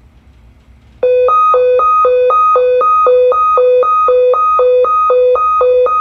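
Sensormatic anti-theft security gate alarm going off. It starts about a second in as a loud two-tone beep, a low and a high tone taking turns about twice a second over a steady higher tone.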